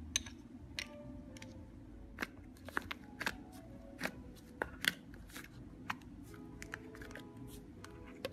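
Slime being scooped with a spoon and then pressed and poked with fingers, giving sharp, irregular crackling clicks and pops, over soft background music.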